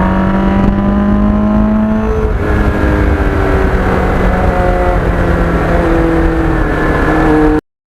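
Motorcycle engine running under way with a steady rush of wind and road noise; its pitch sags slightly, then changes about two seconds in. The sound cuts off suddenly near the end.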